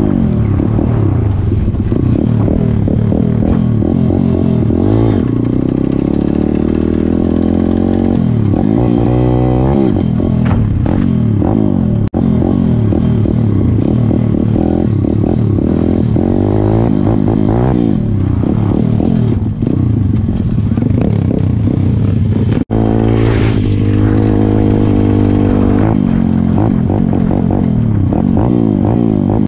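Small single-cylinder four-stroke pit bike engine revving under the rider, its pitch rising and falling over and over as the throttle opens and closes and the gears change, with a steady rush of wind on the helmet-mounted microphone.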